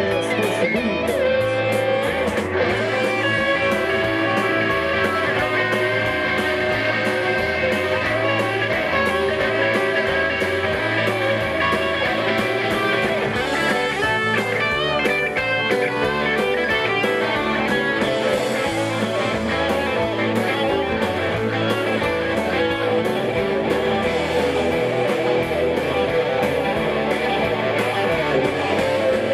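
Live Southern rock band in an instrumental stretch with no singing: several electric guitars playing over a steady drum beat.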